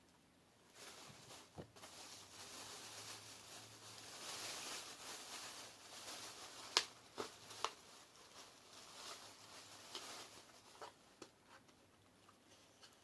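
Rustling and handling of small plastic craft supplies, with two sharp clicks a little past the middle.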